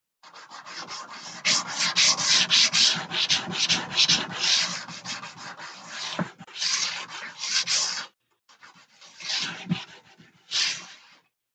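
Sandpaper rubbed by hand over a long wooden strip: quick back-and-forth sanding strokes, several a second, a rasping hiss on the wood. They pause about eight seconds in, then a few slower, separate strokes follow.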